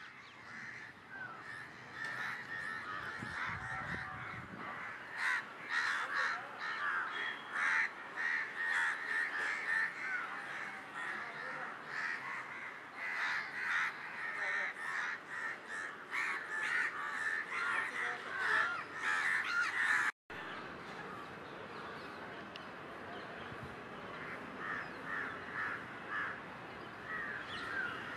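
A flock of crows cawing over and over, many birds at once, agitated at their roost being disturbed. After a brief break about twenty seconds in, the cawing goes on quieter and sparser.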